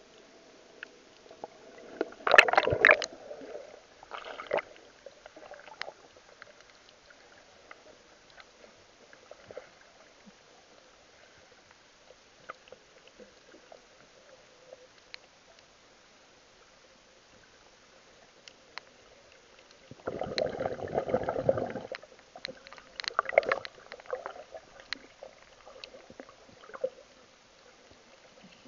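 Muffled water sloshing and gurgling against a camera held underwater, with many scattered small clicks. Two louder stretches of rushing water come about two seconds in and about twenty seconds in.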